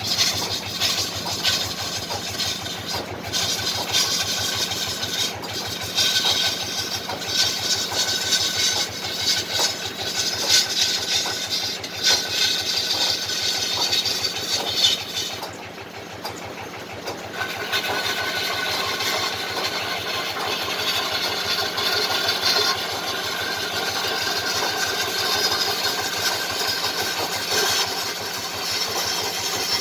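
Wood lathe turning a fruitwood kendang drum body: the motor runs steadily while a turning chisel cuts the spinning wood with a rough, hissing rasp. The cutting stops for about two seconds around the middle and the sound drops to a quieter hum, then the cutting resumes.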